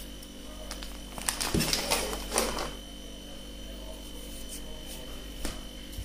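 Light clicks and scraping of kitchen containers and a spoon against a steel plate for a second or two, as salt is added to flour, over a steady low hum.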